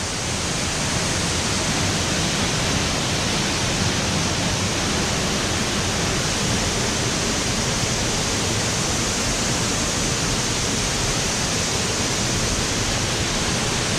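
Waterfall pouring into a rock swimming hole: a steady, unbroken rush of falling water, loud enough to drown out a voice.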